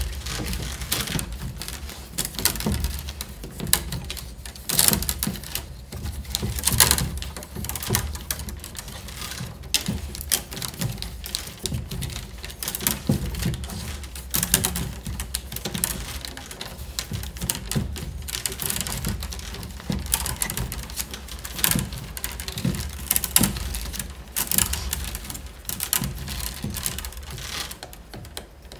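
Peeled wicker rods being woven into a basket wall: irregular clicks and taps as the stiff rods knock and rub against one another, over a low steady hum.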